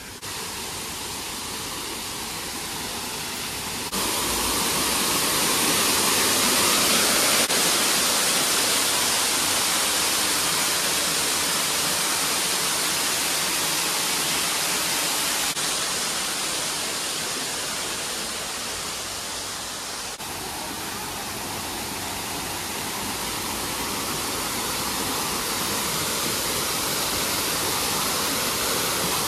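Steady rushing of falling water, like a waterfall. It jumps louder about four seconds in, fades somewhat, then swells again near the end.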